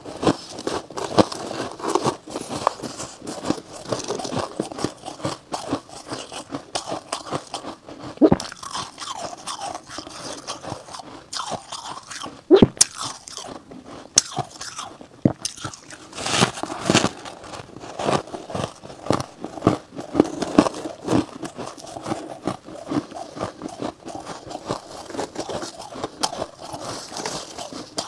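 Freezer frost being bitten and chewed close to a clip-on microphone: a steady run of squeaky, crunchy crackling with a few louder, sharper bites, the sharpest about halfway through.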